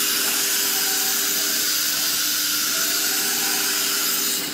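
Steady blast of compressed air hissing from the CNC router's automatic tool changer during a tool change. It starts suddenly and cuts off suddenly after about four and a half seconds.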